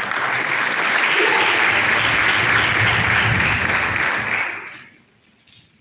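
Audience applauding in a large hall, the clapping fading out about five seconds in.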